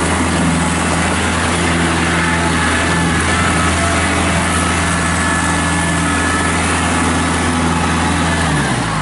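2005 Kubota B2910 compact tractor's three-cylinder diesel engine running steadily as the tractor drives; the engine note drops in pitch near the end.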